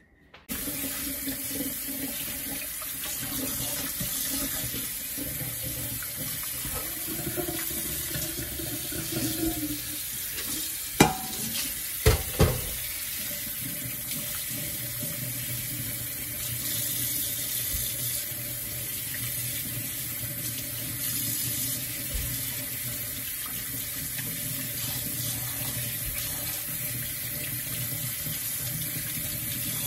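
Kitchen tap running steadily into a sink while raw chicken wings are washed under it, with three sharp knocks about eleven and twelve seconds in.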